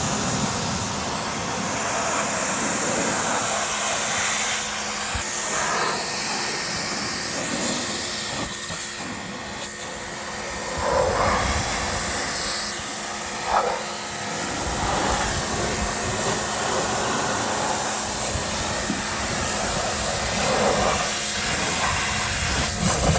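Greenworks Pro 2300 PSI electric pressure washer running, its water jet spraying with a steady loud hiss over a low motor hum, the tone of the spray shifting now and then.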